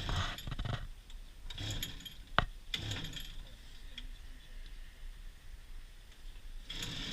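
Scattered mechanical clicks, rattles and a few sharp knocks, with no engine running.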